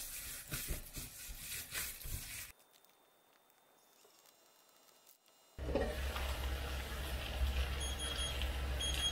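A gloved hand kneading ground pork and minced vegetable gyoza filling in a metal bowl, uneven and clicky for about two and a half seconds, then quiet. From about five and a half seconds a frying pan of gyoza sizzles steadily, with a low hum underneath.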